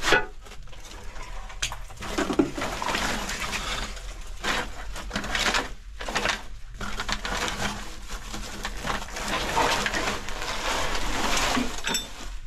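Wooden planks and torn plastic sacking being shifted and pulled aside by hand in a cluttered storeroom: continual rustling and scraping with sharp wooden knocks, the loudest about two seconds in.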